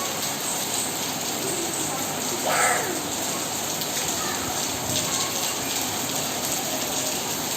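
Steady rain falling, an even hiss of drops, with a brief higher-pitched sound about two and a half seconds in.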